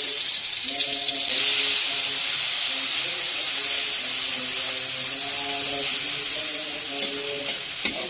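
Pounded paste of garlic, shallots and bird's-eye chilli sizzling loudly in hot oil in a wok as it is stirred with a metal spatula.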